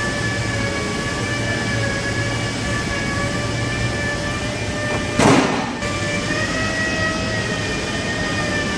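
A machine running steadily, a hum with several held tones over a noise bed. A short, loud burst of noise cuts in about five seconds in and lasts about half a second.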